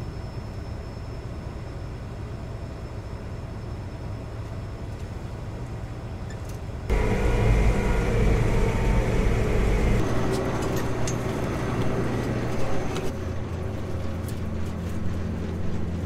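Combine engine running steadily, then about seven seconds in a sudden jump to louder machine noise as the combine harvests soybeans, its header cutting through the crop. It eases off a little near the end.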